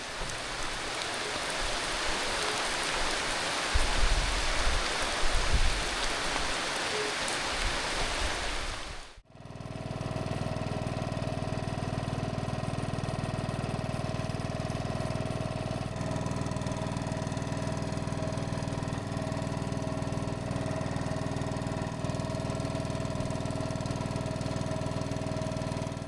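Heavy rain pouring down, with a few low thuds about four to six seconds in. It cuts off abruptly at about nine seconds, and a small boat's engine then runs steadily with an even hum.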